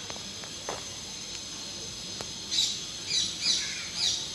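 A bird chirping, four short high calls in the second half, over a steady high hiss, with a few faint clicks before them.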